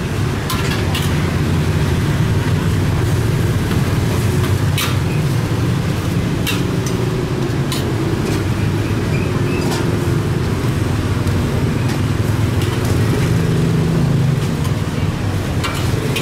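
Stir-frying in a wok: a metal ladle and spatula clank and scrape against the wok a few times, over a steady low rumble.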